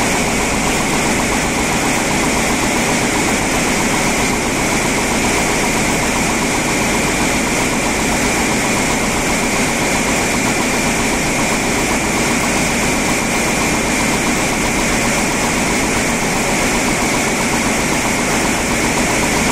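Woven label loom weaving at speed: a loud, fast, even mechanical clatter that never lets up, with a steady high hum running under it.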